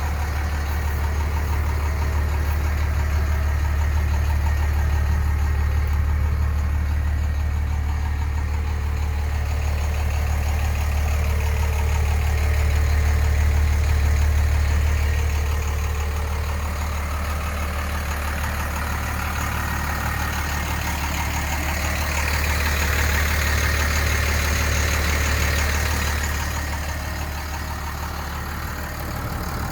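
Cummins 6BT 5.9-litre 12-valve inline-six turbo diesel idling steadily, with a strong low hum that does not change in pitch.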